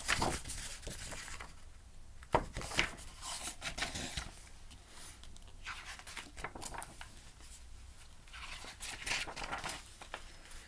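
Pages of a large paperback picture book being handled and turned: a run of short paper rustles and flicks.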